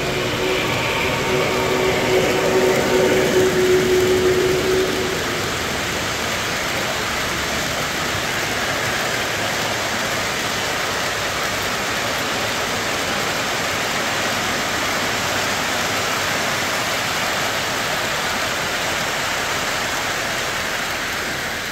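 Three-rail O-gauge model steam locomotive's onboard sound system blowing a steady whistle for about five seconds. Then comes a steady rushing as the metal wheels of its long freight train roll over the three-rail track close by.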